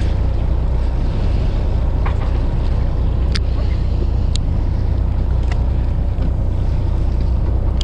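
A fishing boat's engine runs with a steady low hum, with water washing along the hull and wind on the microphone. A few sharp clicks come in the middle.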